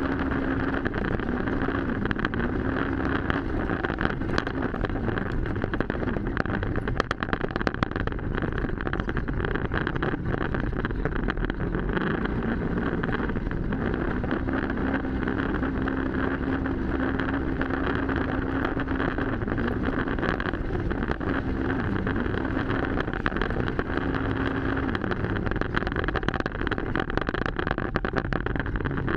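Off-road side-by-side's engine running under way across rough grass, its note rising and falling with the throttle, with wind buffeting the hood-mounted microphone.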